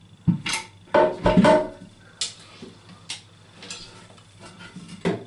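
Knocks and clunks of a ceramic toilet cistern being sat onto the pan and its fixings handled. The loudest come in a cluster about a second in, a few with a short ringing tone, followed by scattered sharper clicks.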